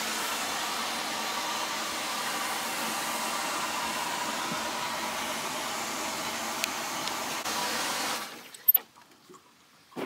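Hydrant running water through a short hose into a livestock water tank: a steady rush of water that cuts off about eight seconds in.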